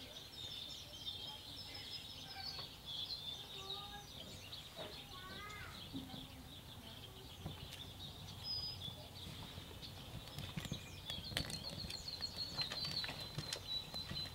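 Birds chirping and calling in quick, high series, with scattered small crackles from a kindling fire of paper and twigs catching, the crackles coming more often near the end.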